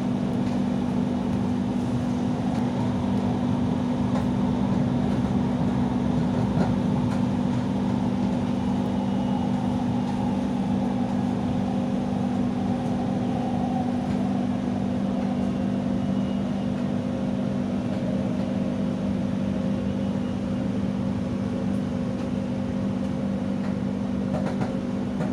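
Cabin running noise of a driverless Doha Metro train on elevated track: a steady low hum over rolling rumble.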